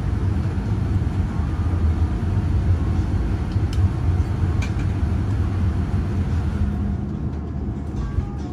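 Steady low rumble inside the cabin of a Boeing 787-9 taxiing in after landing, easing a little about seven seconds in.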